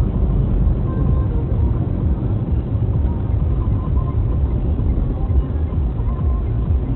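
Steady low rumble of a car driving on a slushy highway, tyre and engine noise heard from inside the cabin through a dashcam microphone.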